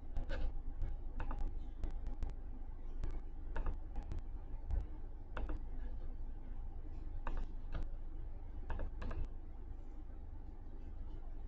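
Irregular clicks of a computer mouse and keyboard, single and in quick little clusters, over a low steady hum.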